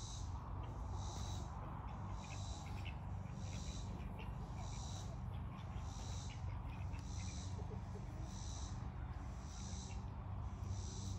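A calling insect's rhythmic high buzz, one pulse about every second, over a steady low hum.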